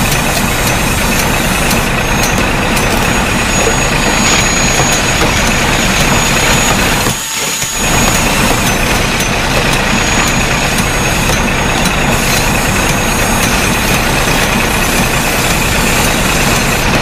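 Heavy vehicle engine running steadily and loudly, as of a truck or wheel loader, with a brief drop in level a little over seven seconds in.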